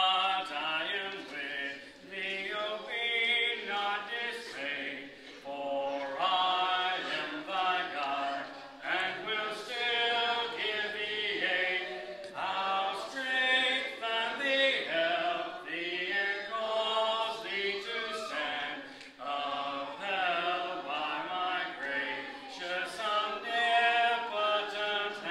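A congregation singing a hymn verse a cappella, with held notes in phrases broken by short breaths between lines and no instruments.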